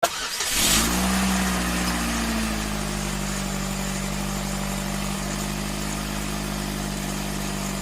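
Car engine starting, its revs flaring briefly and then settling into a steady idle.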